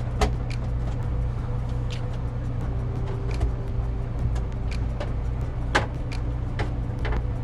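Scattered sharp clicks and taps of plastic parts and screws being handled while the RV vent fan's cover is fitted, over a steady low hum.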